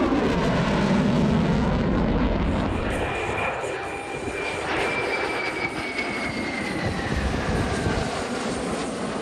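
Jet aircraft flying past: a loud rushing roar whose pitch glides down as it passes, fading over the following seconds into a thin whine that slowly drops in pitch.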